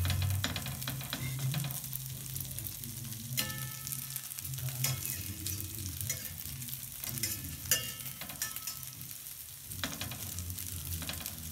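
Frikadellen (meat patties) sizzling and crackling in hot fat in a stainless steel frying pan. A metal spatula knocks and scrapes against the pan a few times as the patties are moved.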